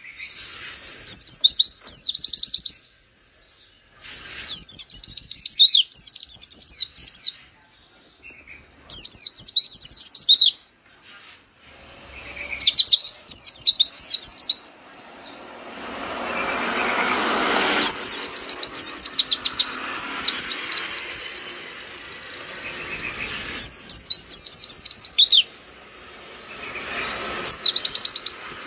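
A white-eye (pleci) singing hard: bursts of fast, high-pitched chirping notes, each burst a second or two long, repeated every few seconds. A steady background noise swells up behind the song about halfway through and dies away a few seconds later.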